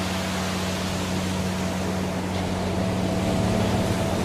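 Waterfall pouring into a pool: a steady, even rush of falling water, with a faint low steady hum beneath it.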